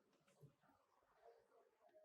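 Near silence: room tone, with two very faint brief handling sounds.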